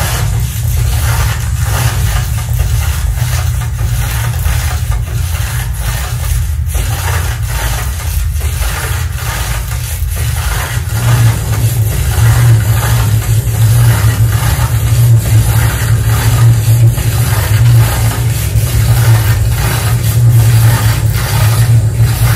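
Electroacoustic sound band played over loudspeakers, built from layered, processed recordings of everyday found objects. It is a loud, steady low hum under a dense, rough, rapidly fluttering noise, and it swells about halfway through.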